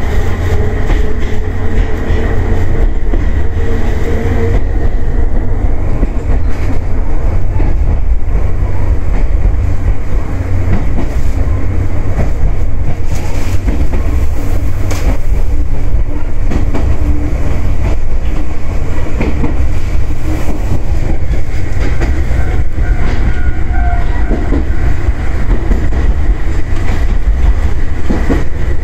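Choshi Electric Railway railcar running along the track, heard from inside the cab: a loud, steady low rumble of wheels on rail with some clatter from the track.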